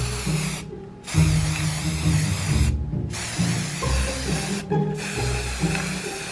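Aerosol can of Rust-Oleum charcoal chalk spray paint hissing in four bursts, with short breaks between them, over background music.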